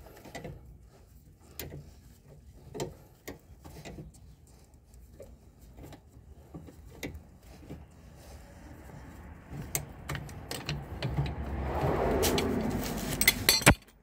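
Large steel C-clamp being screwed in by its T-handle to push the front brake caliper piston back into its bore: scattered light metallic clicks and rattles. In the last few seconds a louder rubbing, scraping noise builds, ends in a few sharp clicks and cuts off suddenly.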